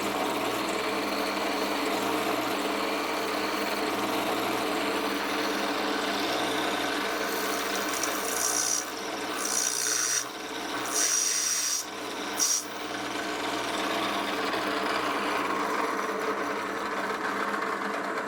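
Power drill running steadily as the bit bores a hole through the head of an aircraft starter bolt, lubricated with cutting oil. Several short bursts of high-pitched cutting noise come about halfway through.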